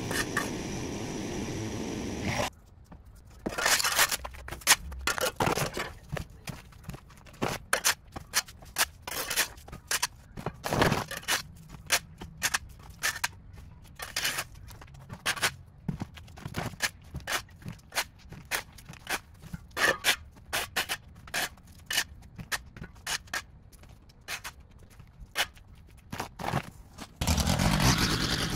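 Irregular scraping strokes of a hand tool working over a hard surface, several a second and uneven. A small engine runs steadily for the first couple of seconds and cuts off abruptly. Near the end a small engine of lawn equipment starts running steadily again.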